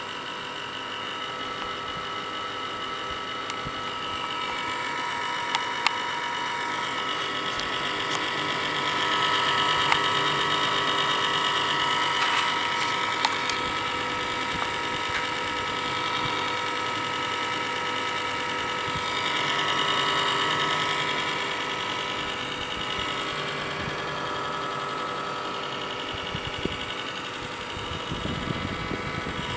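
Computer running at start-up with an unusual steady whine made of several high tones over a hiss, swelling louder twice, around ten and twenty seconds in, with a few scattered clicks.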